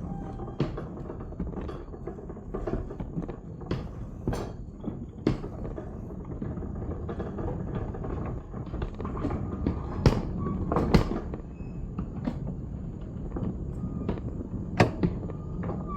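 Small backyard-railroad train rolling down the track with a steady low rumble, and irregular clicks and clanks from the wheels and cars.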